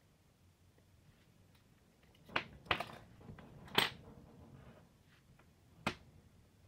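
Light clacks of a pair of metal-framed glasses and clip-on sunglass lenses being set down on a wooden floor: two quick ones, a louder one just after, and a single click near the end.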